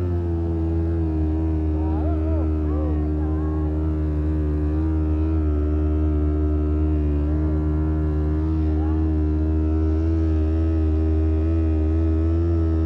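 A steady, deep droning tone with a stack of even overtones, held at one pitch throughout, with a few faint wavering higher sounds about two seconds in.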